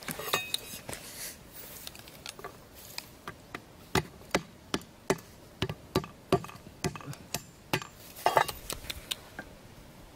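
Machete blade striking and cutting a thin bamboo stick: a run of sharp knocks, about three a second, through the middle, with scraping and handling of the sticks around them.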